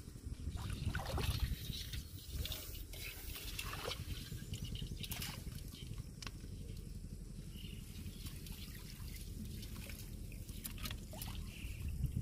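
Water trickling and dripping, with scattered light splashes and clicks, as a catch of small fish, shrimp and snails is shaken from a mesh net trap into a pot of shallow water. A low rumble runs underneath.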